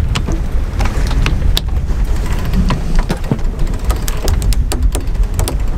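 Sailing yacht under way in rough water: a heavy, steady rumble of wind on the microphone and rushing water, with frequent sharp knocks and clatters of loose gear moving about aboard.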